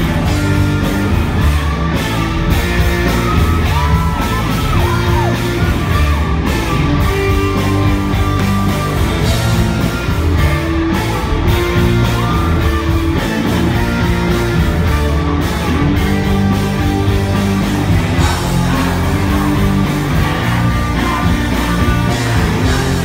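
Rock band playing loudly live: electric guitars, drums and a singer's vocals.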